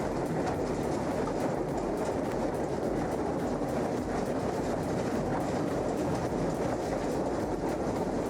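Heavy forestry machine running: a steady rumble with fast, irregular clattering clicks through it.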